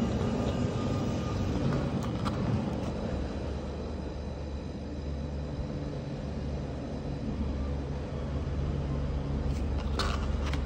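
Newly replaced refrigerator compressor running with a steady low hum, just charged with refrigerant and left to run while cooling is tested. A couple of short clicks or knocks, about two seconds in and near the end.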